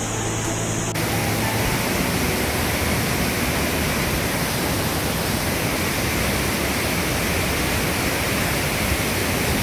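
Steady rushing roar of a waterfall cascading over boulders, cutting in abruptly about a second in after a brief stretch of music.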